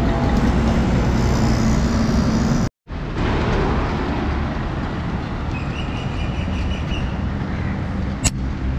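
Steady road traffic noise, heavy in the low end, heard from the road while riding. The sound cuts out completely for a moment about three seconds in, and there is a single sharp click near the end.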